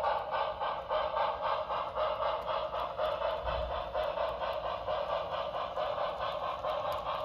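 HO-scale model train running past: the Broadway Limited Imports Commodore Vanderbilt 4-6-4 Hudson's Paragon 4 sound system plays a fast, even steam chuff through its small speaker, over the coaches' wheels rolling on the track.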